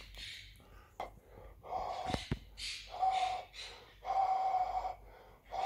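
A person blowing through rounded lips in a run of breathy puffs, several carrying a faint steady whistle. A brief handling bump about two seconds in.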